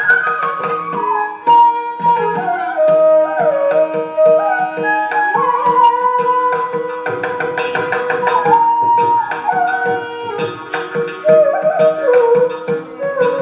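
Background music: a bamboo flute playing an ornamented melody over a drone, with tabla drumming in the style of Indian classical music.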